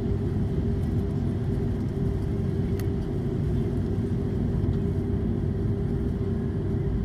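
Steady low rumble and hum inside the cabin of an Airbus A330-300 taxiing, its Rolls-Royce Trent 700 engines at low power. The level holds even, with no build-up of takeoff thrust.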